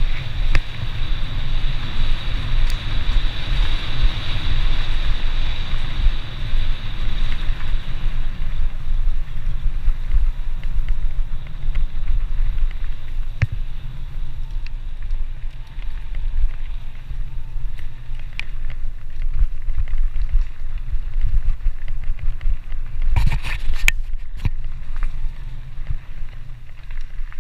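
Wind buffeting a helmet-mounted camera's microphone as a mountain bike runs fast down a dirt and gravel trail, with tyre noise and rattles over the bumps. A short burst of sharp knocks comes about 23 seconds in.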